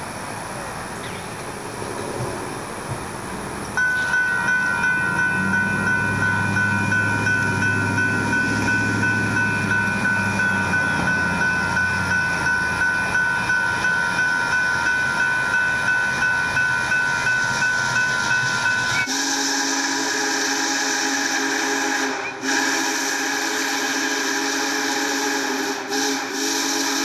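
A grade-crossing warning bell rings steadily at about two strokes a second, starting about four seconds in. About two-thirds of the way through, Union Pacific Big Boy 4014's steam whistle takes over with a loud, long multi-note chord, broken twice by short gaps.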